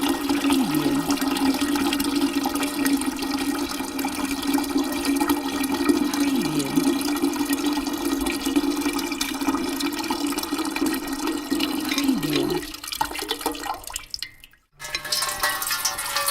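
A steady stream of water pouring into a bucket, with a strong hum from the filling bucket. The stream fades out about 13 seconds in, there is a brief silence, and then a new pour starts.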